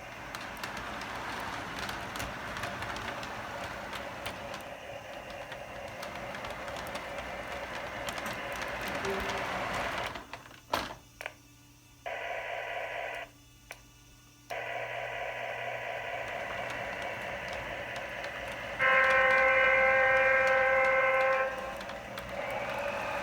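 A sound-equipped model locomotive running with a steady, noisy rumble that drops out briefly about halfway through. Near the end it gives a loud multi-note horn blast lasting about two and a half seconds.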